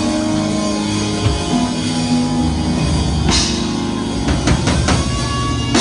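Live church band playing: long held chords over bass and a drum kit, with a cymbal crash about three seconds in and a quick run of drum hits near the end.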